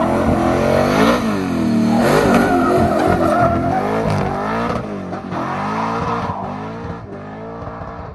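Volvo 242's swapped-in V8 engine being revved hard as the car drives off, its revs climbing and dropping over and over; the sound fades steadily over the last few seconds as the car pulls away.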